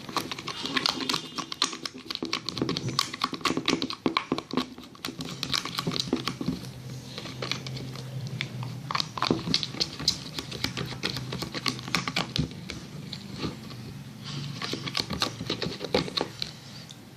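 Spoon stirring a glue and liquid-soap slime mixture in a container, with quick, irregular clicking and tapping of the spoon against the container.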